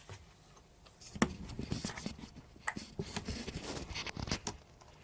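Handling noise as a webcam is picked up and moved about: a second of quiet, then a string of small clicks, knocks and rubbing.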